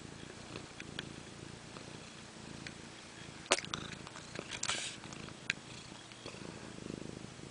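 A sleeping cat snoring in slow, low breaths. A few sharp clicks come in the middle, the loudest about halfway through and a small cluster a second later.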